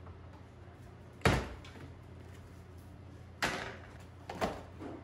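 Hard things set down on a work table: a loud knock about a second in, then lighter knocks near the end, as a plastic tub of chainsaw sharpening tools is put down beside the saws. A faint steady low hum lies underneath.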